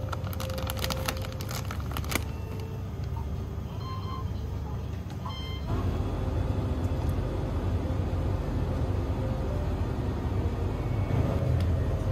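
Convenience-store ambience: a steady low hum with a denser background after an abrupt change just before the middle. In the first two seconds a plastic snack bag crinkles as it is handled.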